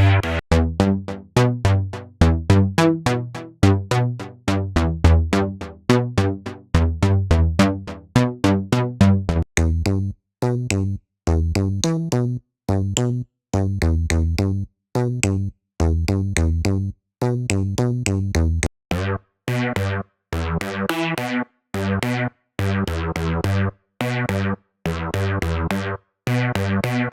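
SynthMaster One software synthesizer presets playing fast sequenced riffs of short, staccato notes with a strong bass. A high ticking layer joins about ten seconds in and drops out near nineteen seconds, after which the notes turn brighter.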